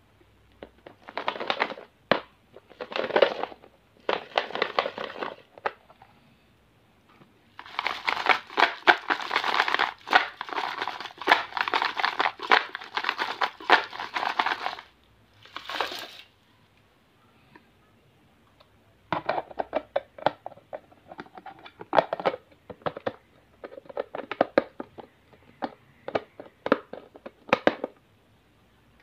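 Cellophane-wrapped toffees rustling and clattering against hard plastic as they are handled in a plastic lunch box and tipped into a plastic toy dump truck's bed. It comes in bursts: a few short rustles, then a long dense rattle in the middle, then a run of separate clicks and patters near the end.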